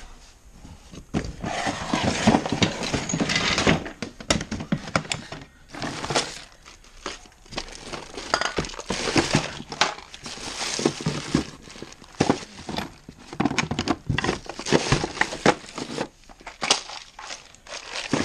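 Tools and loose objects being rummaged through and handled: irregular clattering, clinks and rustling, as when searching for a missing tool.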